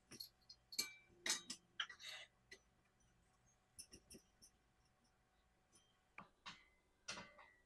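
Sharp clicks and clinks of hard parts being handled and fitted together while a plant stand's poles are put in, coming in scattered clusters: a busy run in the first couple of seconds, a few near the middle and more near the end.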